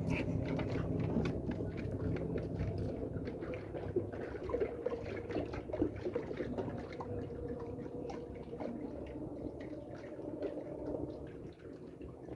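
Water splashing and dripping, with many small clicks and knocks. A low engine hum fades out in the first few seconds.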